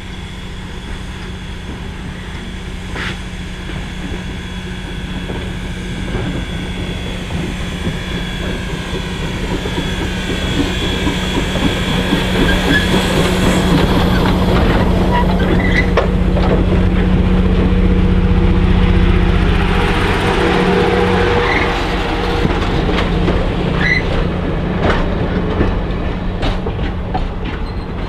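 Viscose Company #6, a small 0-4-0 tank steam locomotive, drawing closer and passing with its passenger train, growing louder to a peak about two-thirds through. The coaches roll by with wheels clicking over the rail joints, and there is a high wheel squeal in the first half.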